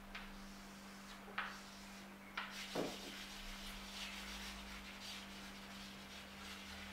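Chalk scraping and rubbing on a chalkboard as a small circle is shaded in: a few sharp taps of the chalk in the first three seconds, then steady scratchy rubbing to near the end.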